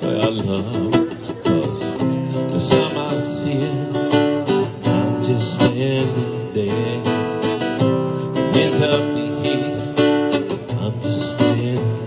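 Music on acoustic guitar, strummed and plucked.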